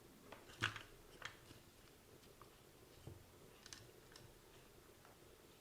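Faint clicks and taps from working a hot glue gun on a plastic RC transmitter case: a few light ticks, the clearest about half a second and just over a second in.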